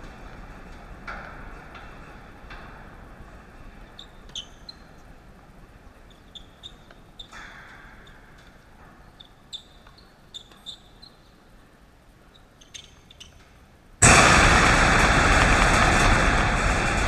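Tennis ball strikes and bounces on a hard court, short sharp pops a second or two apart over a faint steady hiss. About fourteen seconds in, a loud even rush of noise cuts in suddenly and covers the rest.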